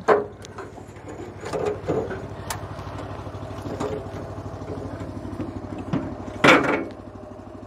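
The spider lift's petrol engine idling steadily, with scattered knocks and clanks as a person climbs into the metal basket, and one louder clatter about six and a half seconds in.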